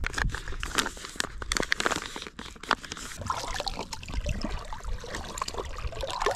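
Foil-lined Mountain House meal pouch crinkling as it is handled, in quick sharp crackles. From about three seconds in, lake water trickling and gurgling as a soft plastic Sawyer Squeeze filter pouch is dipped in and fills.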